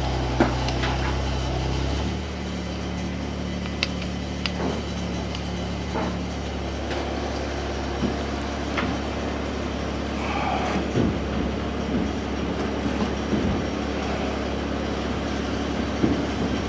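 Engine idling steadily, its note changing and dropping a little about two seconds in, with scattered metallic clicks and clanks from work on the truck's wheels.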